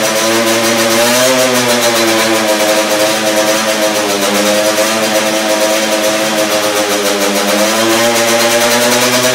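Freshly rebuilt Honda CR80 single-cylinder two-stroke engine in a Moriwaki MH80R race bike running at a steady fast speed, its pitch rising briefly about a second in and again near the end.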